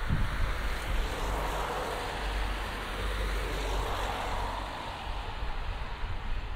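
A passing vehicle's engine and rushing noise, steady, swelling a little around two and four seconds in and easing off near the end.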